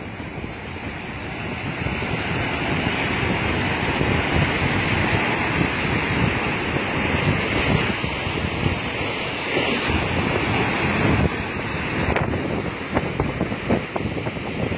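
Waves breaking and washing onto the shore, with strong wind buffeting the microphone.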